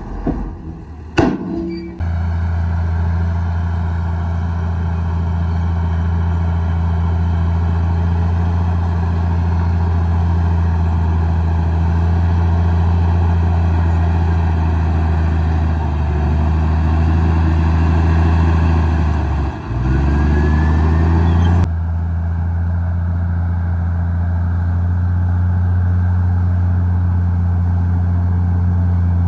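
Komatsu D58E bulldozer's diesel engine running steadily under working load, a deep even hum. A sharp clank sounds about a second in, and about two-thirds through the engine dips briefly and climbs back up.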